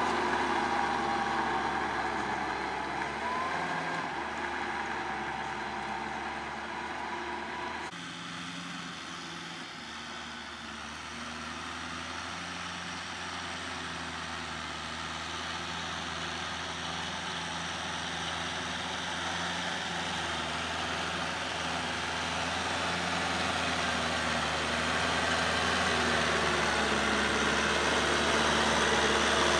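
Kubota L5018 tractor's diesel engine running steadily as it pulls a rotary tiller. The sound changes abruptly about eight seconds in, then grows steadily louder as the tractor comes closer.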